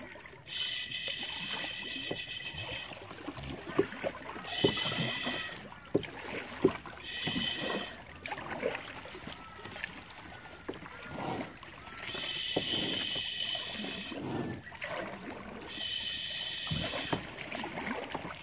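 A kayak being paddled, the paddle dipping and splashing in the water, with a few sharp knocks. A high, steady buzzing call comes and goes about five times, each lasting one to two seconds.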